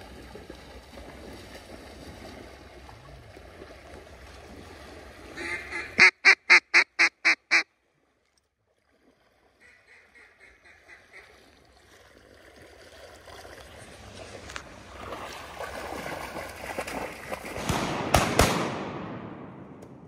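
A run of about eight loud, evenly spaced mallard-style quacks, each weaker than the last, then a softer, quicker run of quacks. After that comes splashing through shallow water, building to a loud splash near the end.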